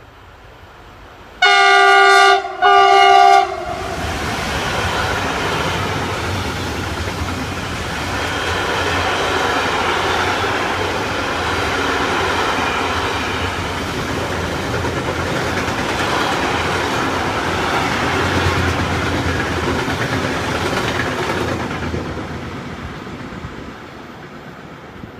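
Train horn sounding two short blasts, then a train passing with its wheels clattering over the rails for about eighteen seconds and fading away near the end.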